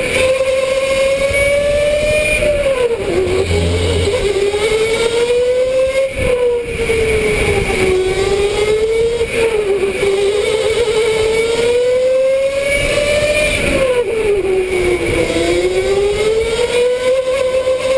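Electric go-kart's motor whining at speed, its pitch sinking as the kart slows into corners and climbing again out of them, several times over.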